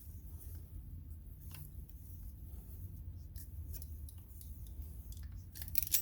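Copper pipe being cut by hand with a tubing cutter: faint, irregular clicking and scraping as the cutter is turned around the pipe. A louder metallic clatter breaks in just before the end.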